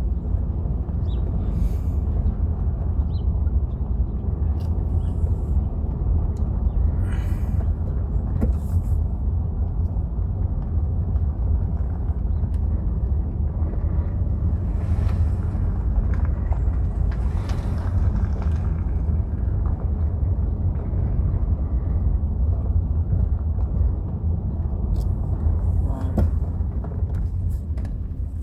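Car driving slowly, a steady low rumble of road and engine noise with a few brief hissy rustles.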